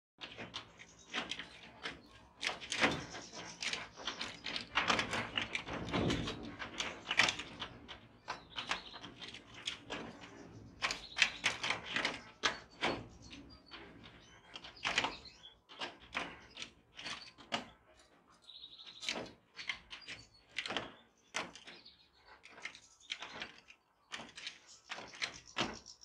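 European goldfinches in a wire cage giving short chirps and twitters, mixed with many sharp clicks and knocks from the birds moving about the cage.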